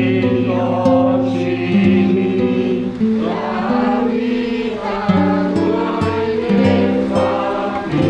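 Small congregation singing a slow hymn together, with guitar accompaniment.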